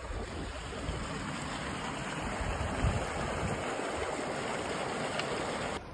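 Muddy groundwater gushing and bubbling up out of the ground in a steady rush: a sand boil from soil liquefaction after an earthquake. It cuts off suddenly near the end.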